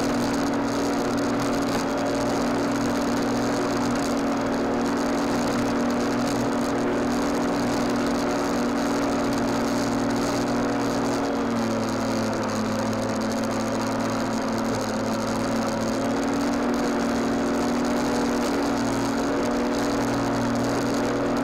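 Lawnmower running steadily, heard close up from a camera mounted on the mower, a steady hum with a hiss of cutting over it. Its pitch sags briefly about halfway through, then comes back up.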